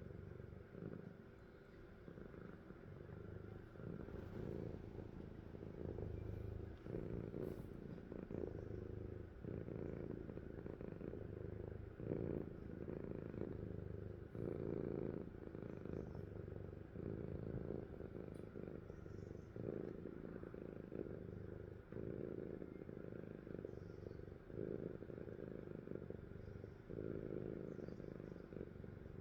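A sleeping cat snoring: a low rumble that swells and fades with each breath, roughly once a second.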